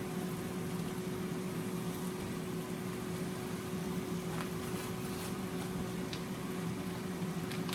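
Steady hum with a constant low tone under an even hiss, with a few faint clicks, typical of a kitchen appliance or fan running while food cooks on a flat grill.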